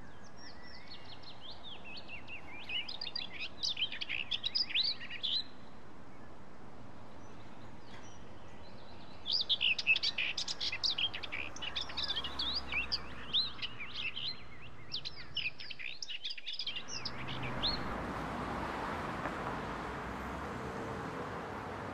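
Birds chirping in quick, dense flurries of high twittering notes, in two spells, over a low background hiss. About sixteen seconds in the background cuts out briefly and is replaced by a steadier, louder rushing noise.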